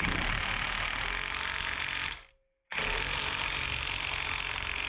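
Metabo HPT WR36DB 36-volt cordless half-inch impact wrench hammering an axle nut tight on a wheel hub. It runs in two long bursts, with a brief stop about two seconds in.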